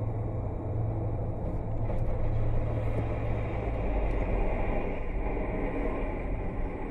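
Steady low rumble of a car driving at speed, tyre and engine noise heard from inside the cabin through a dashcam microphone.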